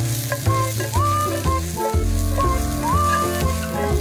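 Sliced eggplant and ground beef sizzling in a frying pan over high heat as they are stirred, under background music with held bass notes and a melody with sliding notes.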